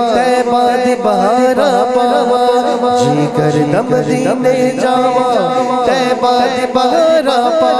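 A man singing a naat into a microphone, in long melismatic runs that glide up and down in pitch, over a steady held drone; a lower held tone joins about three seconds in.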